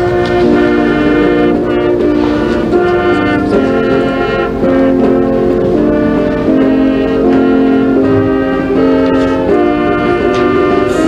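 Slow instrumental music in held chords, the chord changing about every second.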